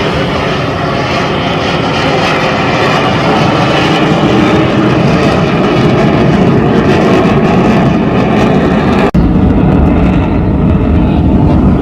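Military aircraft flying over with loud, steady engine noise. About three-quarters of the way through, the sound cuts out for an instant and comes back with a heavier low rumble.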